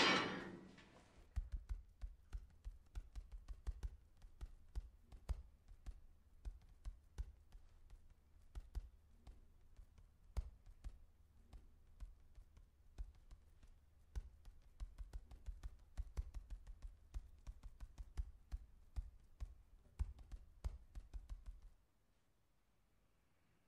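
Faint, irregular tapping and clicking, a few taps a second, each with a soft low thud, stopping about two seconds before the end.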